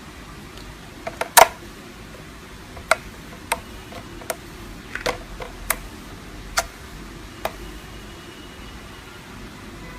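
Slime being poked and pressed, giving sharp, short pops and clicks at irregular intervals, the loudest a quick cluster about a second in, over a steady background hiss.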